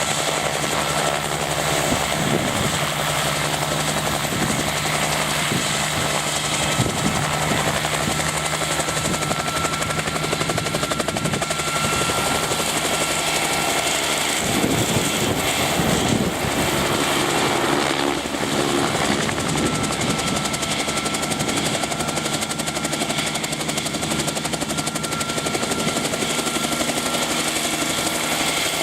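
Bell 47 helicopter in flight, its piston engine and rotor running steadily with a constant drone and whine.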